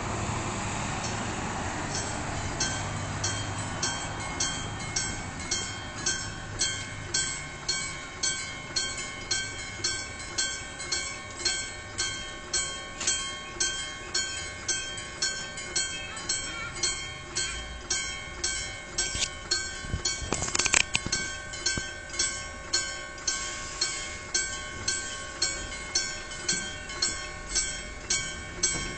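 Level-crossing warning bell on the Randen line ringing steadily, a little under two strokes a second, with a train on the line. About twenty seconds in a brief, louder sound cuts across the bell.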